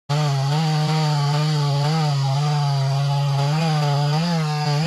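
Chainsaw running at full throttle while cutting into a large tree trunk, its engine note dipping briefly several times as the chain bites under load. It cuts in abruptly at the start.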